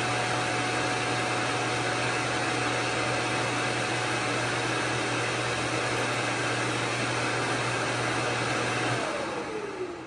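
Ecovacs Deebot X1 OMNI base station's auto-empty suction motor running steadily with a constant whine, drawing the dust out of the docked robot's bin: the self-empty cycle. It shuts off about nine seconds in, and the whine falls in pitch as the motor spins down.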